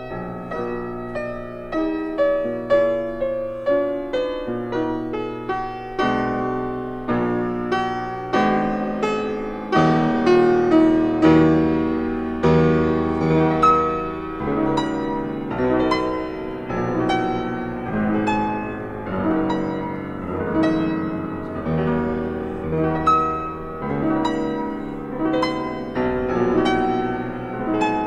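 Background piano music: a melody of struck, decaying notes over chords, a few notes a second.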